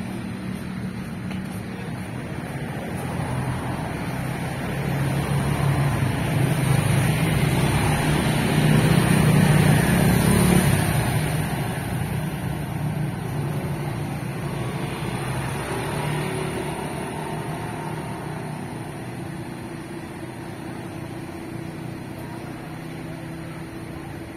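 Road traffic passing: a bunch of motorbikes and a car go by, building to loudest about ten seconds in and then fading, with more cars passing more quietly afterwards.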